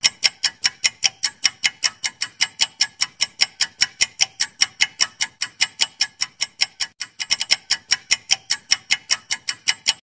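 Fast ticking-clock sound effect for a quiz countdown timer, about five sharp ticks a second, cutting off suddenly near the end.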